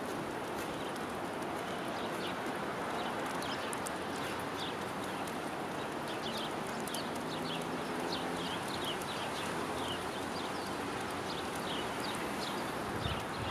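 Small songbirds giving short, high chirping calls again and again over a steady outdoor rush, with a faint low hum beneath.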